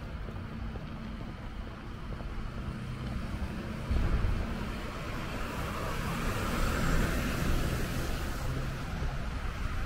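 Street traffic: a car passing, its tyre hiss swelling from about four seconds in to a peak around seven seconds, then easing off, over a steady low rumble of the road.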